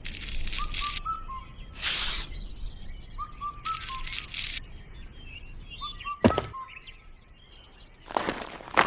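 Birds chirping in short groups of three or four quick notes that recur about every two seconds, with bursts of hiss in between. A sharp click comes about six seconds in, and louder noise follows near the end.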